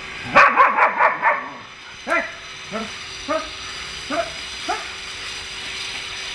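Dog barking at a stray cat: a rapid flurry of about six barks starting about half a second in, then five single, sharper barks spaced a half-second or so apart.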